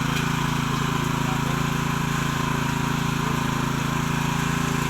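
Cultivator's small engine running steadily at an even speed.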